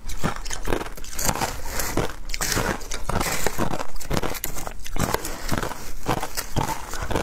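Crushed ice with matcha powder crunching close up: a dense, uneven run of crunches and crackles as ice is chewed and a metal spoon digs and scrapes through the ice in a plastic bowl.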